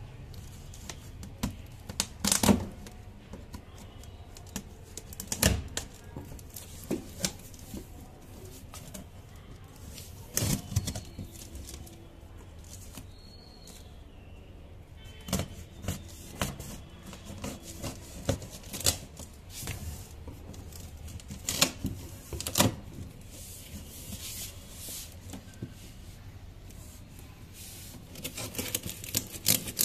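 Knife slitting packing tape on a cardboard box, with irregular scrapes, clicks and knocks of the blade and hands on the cardboard.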